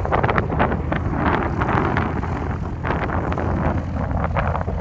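Wind gusting across the microphone, over a steady low rumble from a distant Boeing 747 freighter's jet engines as it climbs away after takeoff.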